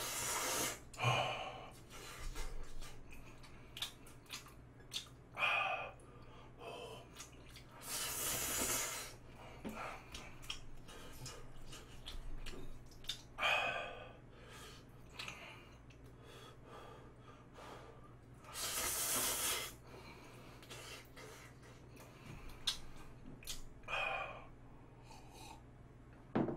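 A person eating Buldak spicy stir-fried noodles with chopsticks: slurping and chewing with small clicks, and two long breaths drawn in sharply through the mouth, about a third and two-thirds of the way in, against the heat of the spice.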